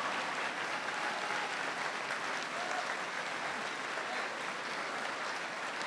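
A large audience applauding steadily, many hands clapping at once, with a few faint short calls or whistles mixed in.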